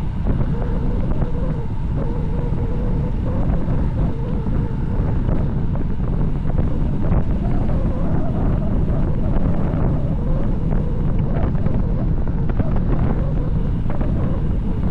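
Steady heavy wind rush on the microphone of a bicycle descending at high speed.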